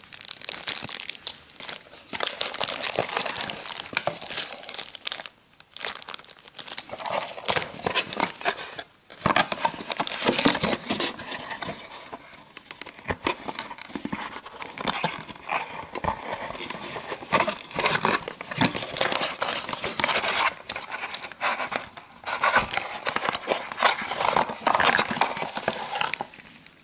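Clear plastic packaging bags crinkling and rustling as they are handled and opened, with a few short pauses.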